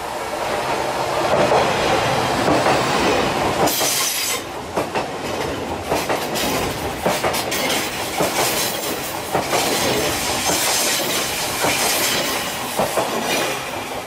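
Odakyu 50000-series VSE Romancecar electric train passing close by: a steady rushing rumble, with its wheels clattering over rail joints in a run of sharp clicks from about four seconds in as the cars go past.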